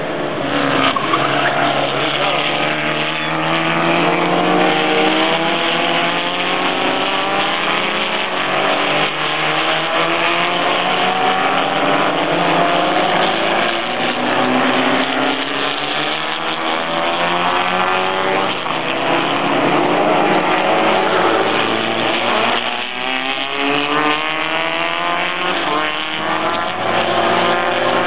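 Vintage open-wheel formula race car engine running hard along the track, its pitch rising again and again as it accelerates through the gears, with a drop at each shift.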